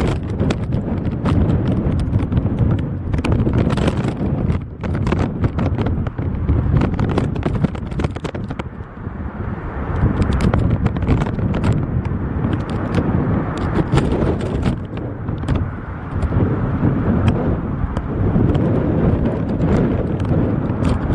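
Airliner cabin noise during a turbulent approach in strong storm winds: a steady rush of engine and airflow with frequent sharp rattles and knocks as the plane is shaken about.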